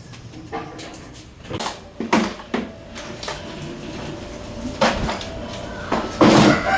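Irregular knocks and clatters of hard objects being handled, with a louder, busier clatter near the end.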